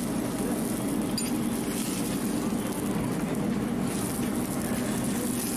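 Steady low rumble and hiss of a busy street-food dosa griddle station, unchanging throughout.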